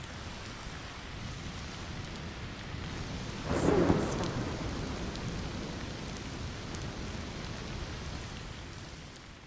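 Steady rain falling, with a sharp clap of thunder about three and a half seconds in that rumbles away over the next few seconds. The rain fades out near the end.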